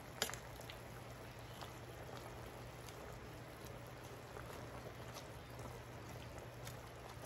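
Faint bubbling and ticking of a large pot of chicken tinola soup simmering, with a light click just after the start.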